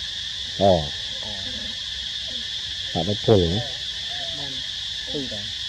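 Steady high-pitched drone of insects, with several short, loud calls that slide down in pitch: one about a second in, a pair around three seconds in, and more near the end.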